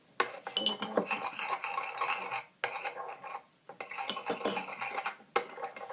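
A spoon stirring and scraping a slime mixture of glue, shower gel and borax water in a bowl, with clinks against the sides: two spells of stirring with a short pause between.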